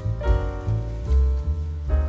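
Background music: gentle piano-led instrumental with a steady low beat.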